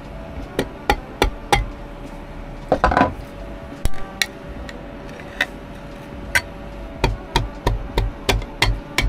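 Hammer striking a screwdriver to punch through the metal lid of a curry paste container: a series of sharp taps, with a short scraping burst about three seconds in and quicker, closer taps near the end.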